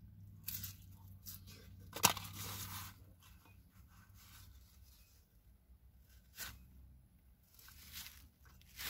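Faint crunching and chewing of a flaky fried pastry crust being bitten and eaten, with scattered small crackles and one sharper crackle about two seconds in.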